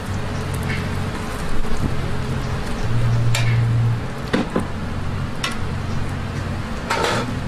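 Hotteok frying in oil on a flat griddle under metal presses: a steady sizzle with a few sharper spatters and crackles, the loudest near the end.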